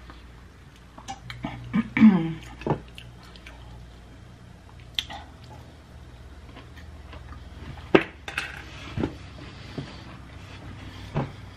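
A person eating: a plastic fork clicking and scraping against a plate several times, with chewing between, and a short closed-mouth hum about two seconds in.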